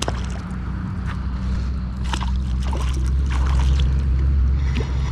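A hooked catfish splashing and thrashing at the water's surface as it is reeled in, in several irregular splashes over about two seconds midway, over a steady low rumble.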